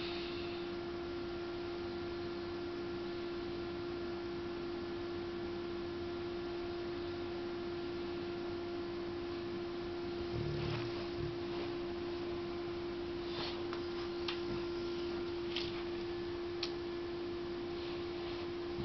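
A steady hum on one pitch runs throughout. About halfway through, a sleeping English bulldog gives one short, low snore, followed by a few faint ticks.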